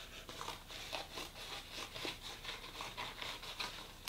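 Scissors cutting through a sheet of crumpled white paper: a steady run of short, crisp snips, about three a second, with the paper rustling.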